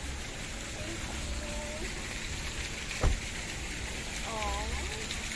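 Indistinct, distant voices over a steady background hubbub, with one sharp knock about three seconds in.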